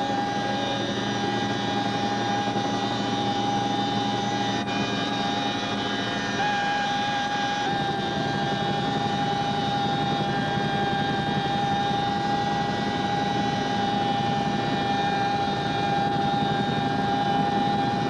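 Steady cabin noise inside a CH-47 Chinook helicopter in flight: the drone of its engines and rotor drive with a constant high whine.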